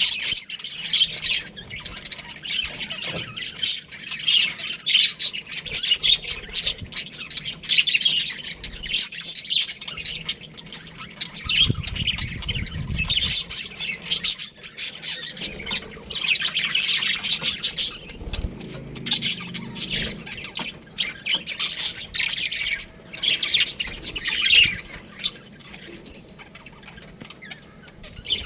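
A flock of budgerigars chattering, a dense, almost unbroken stream of short, high, squawky chirps from many birds at once, thinning out near the end.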